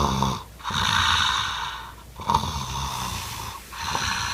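Loud snoring, with rough, noisy breaths about every one and a half seconds.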